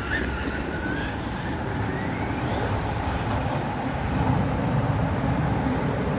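Steady rumble of road traffic, with a faint whine rising and falling now and then from the small RC truck's brushless motor as it is driven.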